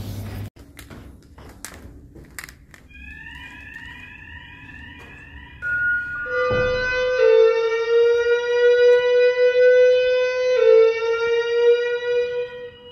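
Fire alarm sounder sounding between voice evacuation messages. A few clicks come first, then a quieter run of short rising tones at about three a second. About halfway through, a louder held tone takes over that drifts slightly upward, restarts a few seconds later, and stops just before the end.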